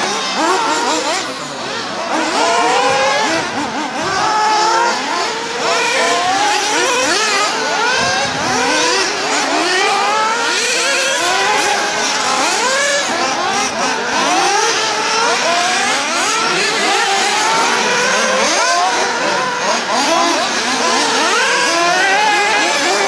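Several 1:8 scale nitro RC off-road buggies racing together, their small two-stroke glow engines whining and revving up and down in many overlapping, rising and falling pitches.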